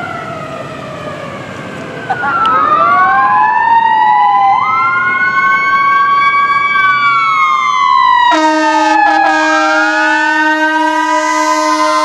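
Pierce fire truck responding with sirens wailing, their pitch gliding up and down and getting louder about two seconds in. About eight seconds in, a steady horn blast joins the sirens, with a short break near the nine-second mark.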